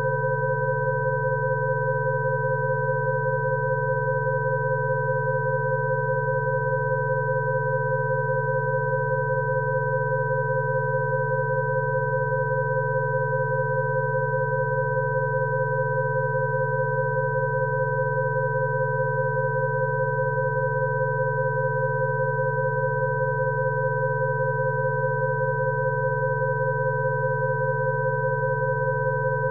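Rife frequency tones: several steady electronic sine tones sounding together without change, a low hum beneath higher pure tones.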